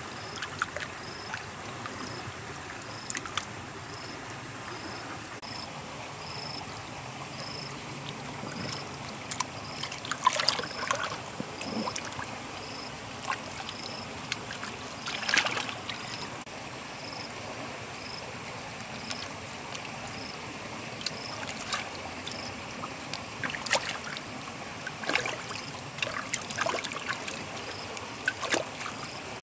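Shallow muddy water splashing and sloshing in irregular bursts as bare hands grab at catfish thrashing in it, over a steady trickle of flowing water. A faint high chirp repeats about once a second in the background.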